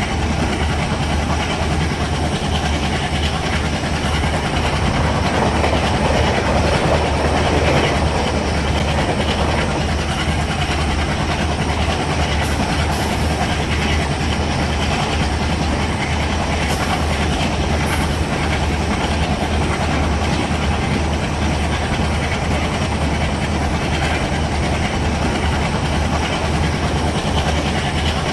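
Indian Railways WDM-3D diesel-electric locomotive, its 16-cylinder ALCO 251 engine running with a steady low drone as the train moves, with wheel clatter on the rails mixed in. The sound swells a little about six seconds in.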